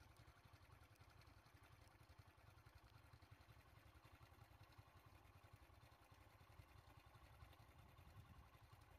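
Near silence, with a faint steady low rumble underneath.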